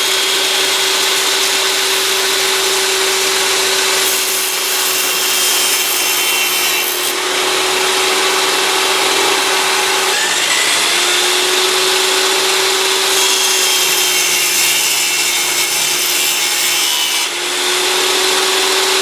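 Electric power saw cutting plywood: a steady motor whine under the rasp of the blade through the wood, the pitch sagging a little now and then as the cut loads the motor.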